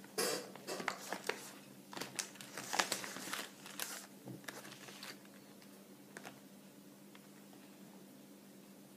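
Plastic sweet packet crinkling as a Skittle is picked out of it: a scatter of crisp crackles and rustles that dies away about five seconds in, leaving a faint steady hum.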